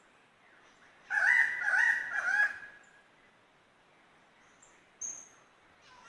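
Superb lyrebird calling: three loud, rasping notes about half a second apart, starting about a second in, followed near the end by a short high whistle.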